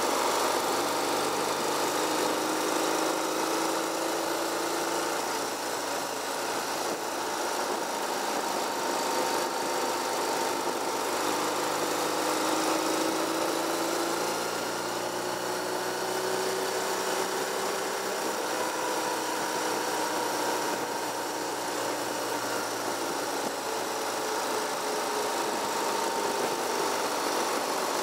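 Car driving along, heard from inside the cabin: steady road and tyre noise with the engine's hum, its pitch drifting slowly up and down as the speed changes.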